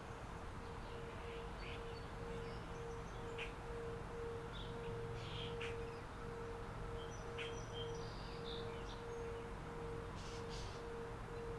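Singing bowl ringing with one sustained tone that swells and fades in a steady pulse of two or three beats a second.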